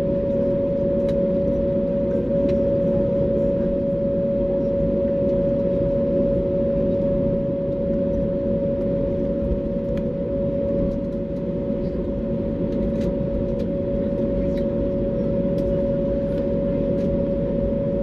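Airbus A321neo cabin noise while taxiing after landing: a steady low drone of the idling engines and cabin air with a constant mid-pitched whine over it, and a few faint clicks.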